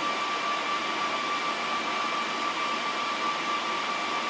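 Rack server's cooling fans spinning at full speed on power-up, a steady loud rush of air with a constant high-pitched whine.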